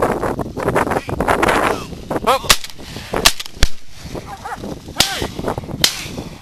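Shotguns firing at teal over a marsh: about five sharp shots between roughly two and a half and six seconds in, two of them heavier than the rest, after a couple of seconds of rustling noise.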